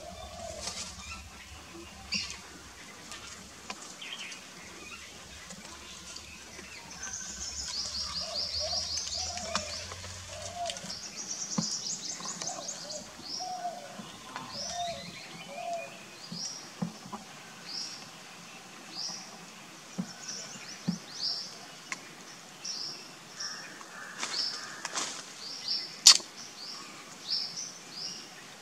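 Wild birds calling: a fast, high trill in the first half, then one bird repeating a short falling chirp about once a second, with fainter calls beneath. A single sharp click sounds near the end.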